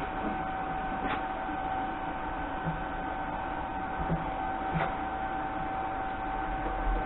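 Welding machine running with a steady high-pitched whine, with two short sharp crackles about a second and about five seconds in as tack welds are struck on the sawmill's log clamp.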